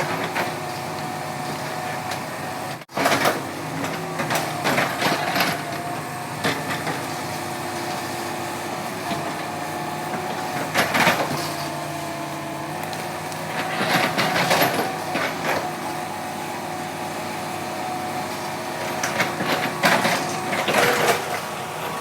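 Hitachi excavator's diesel engine running steadily, its pitch shifting a little now and then, with several bouts of metal clanking and knocking from the machine at work.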